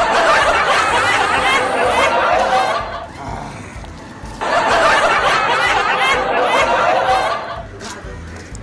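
Laughter in two stretches of about three seconds each, with a short pause between.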